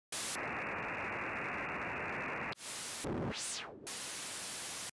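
Electronic TV-static sound effect: a steady hiss that breaks off about two and a half seconds in. A short burst and a tone sweeping up very high and back down follow, then more static that cuts off abruptly.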